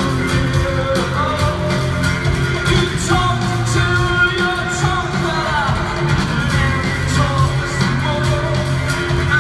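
Rock band playing live through an arena PA: a man singing over drums and bass, with cymbal hits in an even beat.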